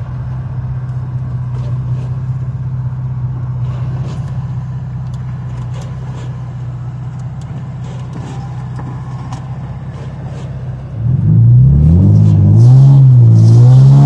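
Nissan 350Z's 3.5-litre V6 running steadily at low revs, heard from inside the cabin. About eleven seconds in it gets much louder as the throttle opens, and the revs climb and dip several times.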